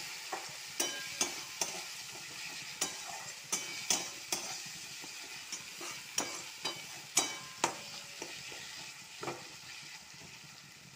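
Onion and spice masala frying in a metal kadai, a steady sizzle, while a metal spatula stirs it, knocking and scraping against the pan irregularly about once or twice a second. The sizzle eases off toward the end.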